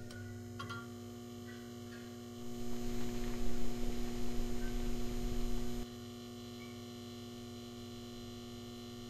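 A steady humming drone of several held tones. A louder, noisier swell rises over it from about two and a half seconds in and drops away suddenly near six seconds.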